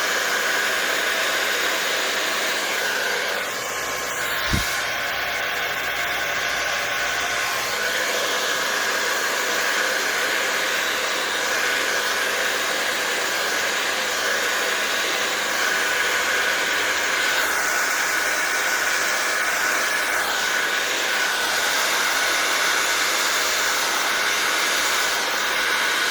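Handheld blow dryer running steadily with a nozzle attachment, a constant rush of air with a steady whine, blowing wet acrylic paint across a wood round. A brief click about four and a half seconds in.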